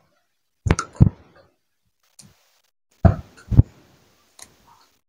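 Green beans being snapped by hand into short pieces: a few sharp snaps and knocks, coming in two pairs a couple of seconds apart.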